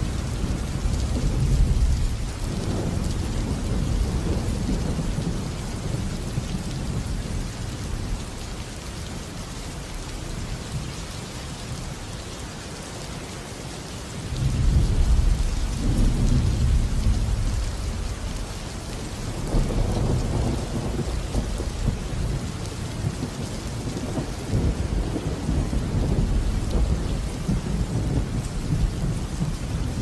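Thunderstorm: steady rain falling, with low rolling thunder. The rumbling fades for a while, then a loud peal breaks in suddenly about halfway through, and more rumbles swell and fade in the second half.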